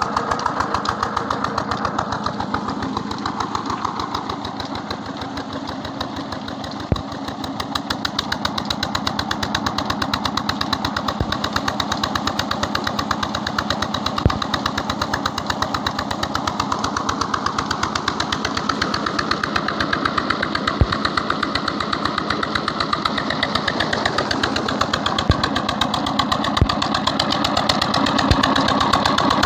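JD 25 hp Chinese 1115 single-cylinder diesel engine running steadily under load, belt-driving an irrigation water pump, with a fast, even firing beat. A sharp click comes every few seconds, and the engine is louder near the end.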